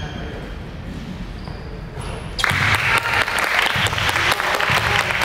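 Spectators' applause bursts out suddenly about two and a half seconds in, a dense patter of many hands clapping in a gym, as after a made free throw.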